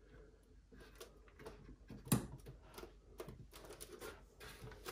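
Allen key tightening the set screw at the joint of a Huanuo HNDS6 gas-spring monitor arm: faint scattered metal clicks and ticks, with one sharper click about two seconds in.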